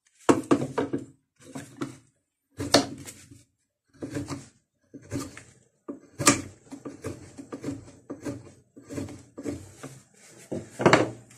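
A freshly sharpened Stubai No. 4 carving gouge cutting into a block of wood in about a dozen short strokes, each a brief scraping cut with a short pause between. These are test cuts that check the edge after sharpening.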